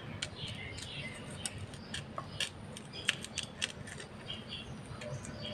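Quiet crinkling and small sharp clicks of a folded banana leaf being handled and pierced with a wooden toothpick to pin the parcel shut.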